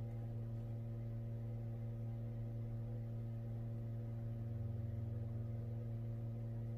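Steady low electrical hum with a stack of even overtones, holding at one level throughout: background hum in the recording, with no other sound.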